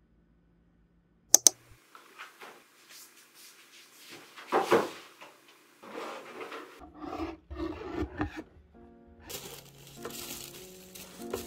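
Two sharp clicks, then objects being handled and set down with irregular knocks and rustles. Near the end, soft piano background music comes in over the crinkle of tissue paper as a gift box of skincare products is unpacked.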